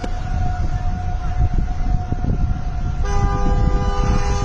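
Steady wail of a distant tornado warning siren over gusty wind rumbling on the microphone; about three seconds in, a car horn sounds for nearly two seconds.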